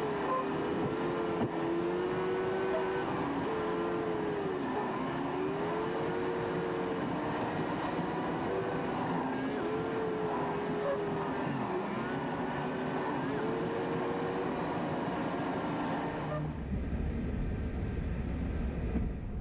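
Motorcycle engine under way, its revs rising and falling repeatedly as the rider works through curves and gear changes. About 16 seconds in, the engine sound gives way abruptly to a low rumble.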